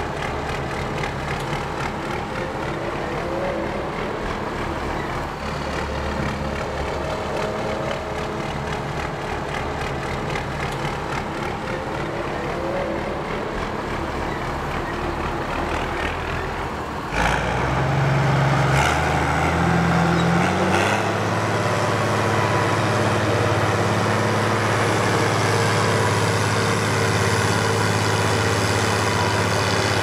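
Heavy diesel farm machinery running steadily. About halfway through, the sound switches abruptly to a louder, steadier low engine drone, with two short knocks shortly after.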